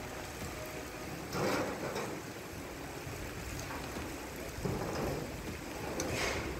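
Hurricane rain and wind: a steady rush of storm noise that swells in gusts three times.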